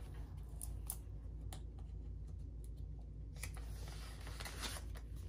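Faint rustling and a scatter of light clicks as paper banknotes are handled and slid into a clear plastic pouch in a ring binder.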